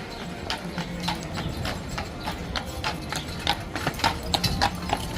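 Horse hooves clip-clopping on a hard street, with many irregular hoof strikes several times a second that get louder toward the end.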